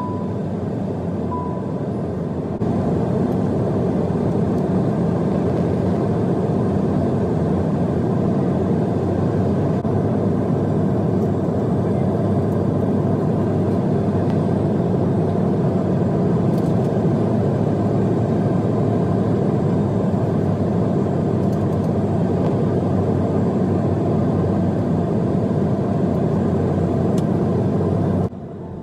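Steady cabin noise of a jet airliner on approach, heard beside the wing: a deep rumble of turbofan engine and airflow. Two short high beeps sound right at the start, and the noise steps up a little after about two and a half seconds.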